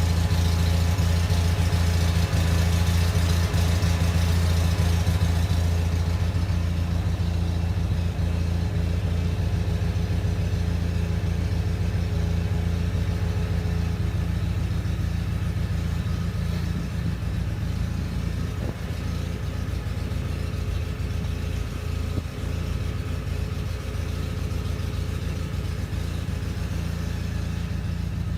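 John Deere 318 garden tractor's two-cylinder engine running steadily at a low, even hum. A high hiss over it fades after about six seconds.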